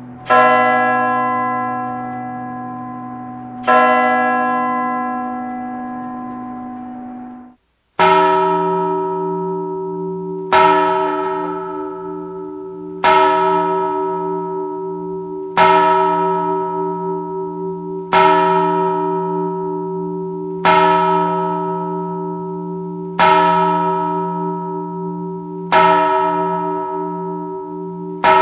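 Church bell tolling: two ringing strokes of one bell, cut off abruptly, then after a moment's gap a lower-pitched bell tolls nine times at an even pace of about one stroke every two and a half seconds, each stroke ringing on with a wavering shimmer into the next.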